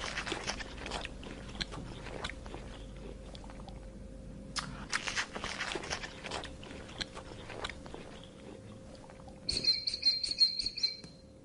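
An animal crunching and chewing food, with many short crackly bites. Near the end comes a short, high-pitched, rapidly pulsing chirp.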